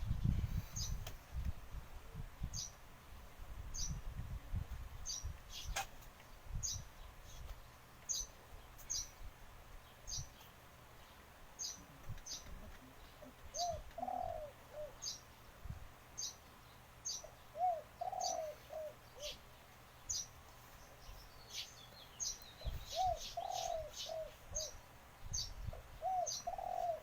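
A small bird chirps repeatedly, about once a second, while a dove coos in short phrases of three or four notes every few seconds.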